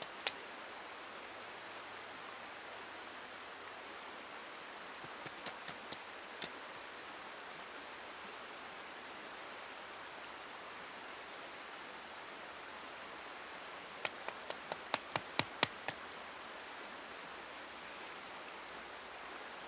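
Steady rushing of river water, broken by short runs of sharp clicks and snaps from sticks being handled and worked with a knife: a few about five seconds in, and a quick run of about eight near the end.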